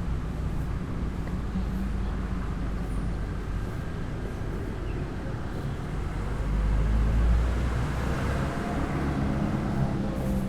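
Street traffic: a steady low rumble of vehicle engines and tyres on the road, swelling as a vehicle passes close by about two-thirds of the way through.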